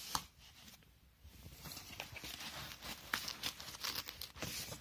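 Camera gear being handled in and out of a padded camera bag: rustling, with a run of small clicks and knocks from about a second and a half in.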